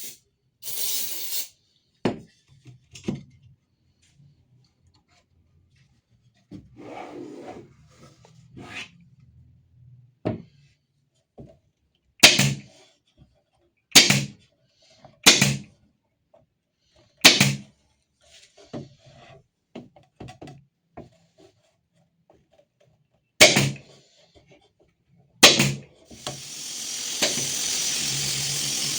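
Workshop handling sounds: a series of sharp knocks and taps, roughly a dozen spaced a second or more apart, with softer rubbing and scraping between them. A steady hiss starts near the end.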